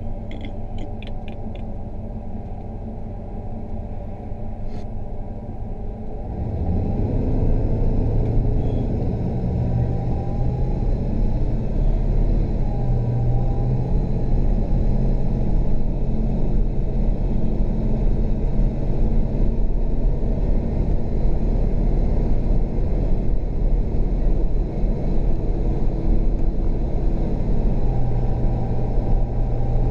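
Car engine and road rumble heard from inside the cabin, getting louder about six seconds in as the car pulls away and picks up speed, then running steadily. A few quick faint clicks near the start.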